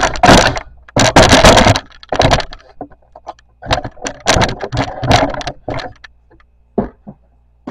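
Loud rustling and clattering as the camera is picked up and moved, then a quick run of sharp clicks and knocks from a wooden kitchen cupboard and the packages on its shelves being handled.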